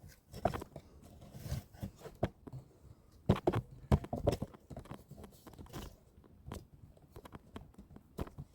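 Irregular knocks, clicks and crunches close to the microphone, with the loudest cluster about three to four and a half seconds in.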